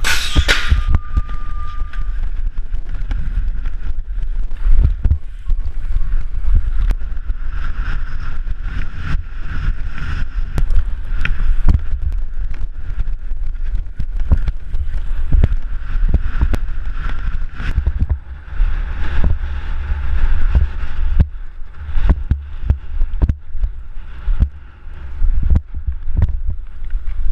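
Wind buffeting a helmet-mounted action-camera microphone as a mountain bike races over a dirt 4X track. Tyres hiss on the dirt, and the bike knocks and rattles often over the bumps. At the very start there is a loud clatter with a steady high beep lasting about two seconds, as the metal start gate drops.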